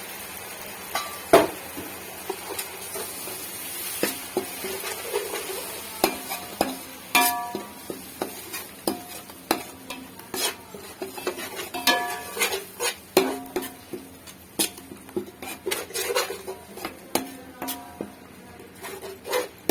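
Spoon stirring tomato paste into frying masala in a metal pot, with uneven clinks and knocks on the pot, some of them ringing briefly, over a light sizzle.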